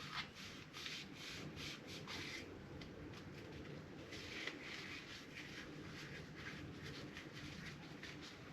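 Faint rubbing and wiping with a cloth over a fork part, in a run of short, irregular strokes.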